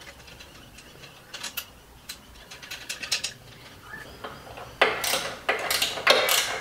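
Clicks and scraping of a 3D printed plastic blade guide holder and its metal bolts being slid and adjusted by hand under a bandsaw table. The clicking is sparse at first, then turns louder and comes in quick strokes about five seconds in.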